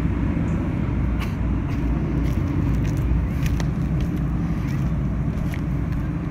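Piston-engined stunt planes droning overhead at a distance, a steady low engine rumble mixed with wind noise.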